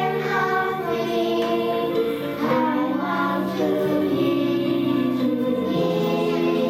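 Choral music: a choir singing held notes in harmony, the chords changing every second or so.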